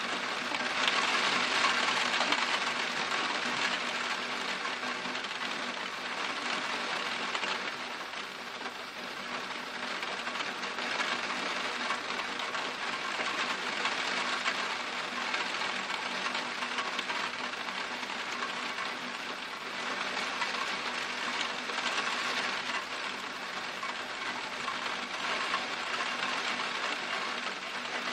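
Torrential rain pouring down in a steady hiss, loudest in the first several seconds, then easing off and swelling again.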